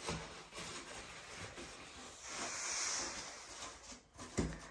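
Faint rustling and scratching of mineral wool being pressed by gloved hands into the gaps between pipes on a wooden floor, with a brief louder hiss a little past the middle.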